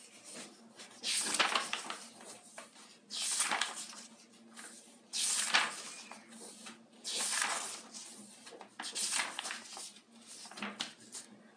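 Paper pages of a softcover practice-test book being turned one after another, a crisp rustle about every two seconds.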